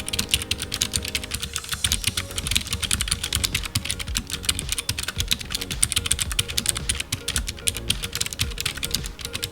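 Fast typing on a Keychron K3 low-profile mechanical keyboard with blue clicky switches: a dense, continuous run of sharp key clicks, many strokes a second.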